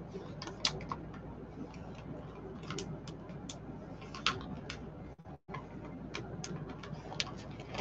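Zip-top plastic bag of meatloaf mixture being squeezed and kneaded by hand, the plastic crinkling with scattered light clicks at uneven intervals.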